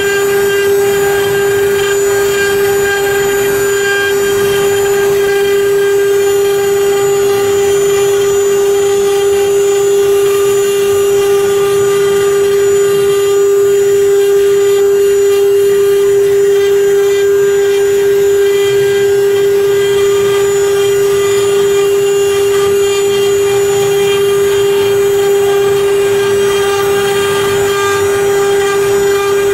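Multi-head CNC router's spindle running with a steady high whine while its bit carves a relief into an MDF board, a rough cutting noise under the whine.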